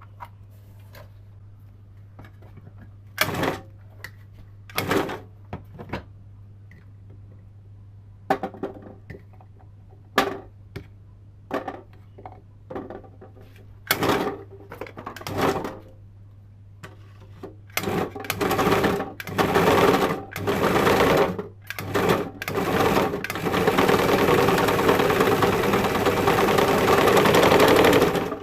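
Sewing machine motor driving a homemade tin-can onion slicer. After a few short knocks it is switched on in brief bursts, which grow longer until it runs continuously for the last four seconds or so.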